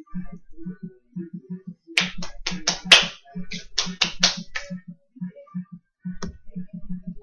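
Tin of Copenhagen snuff being packed by flicking it against a finger: a run of short dull taps, about four or five a second, with a cluster of louder, sharper snapping taps from about two to four and a half seconds in, and one more sharp click near the end.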